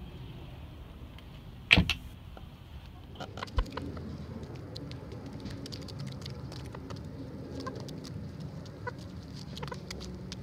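Hens pecking and scratching at dirt: many short scattered clicks with a few faint clucks. A single sharp knock, the loudest sound, comes about two seconds in, with a smaller thump a couple of seconds later.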